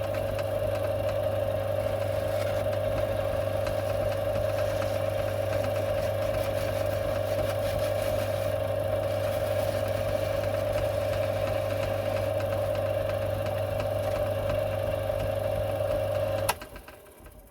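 Small metalworking lathe running at a steady speed with an even hum and whine while emery cloth polishes the turned part down to size. Near the end it is switched off with a click and quickly runs down.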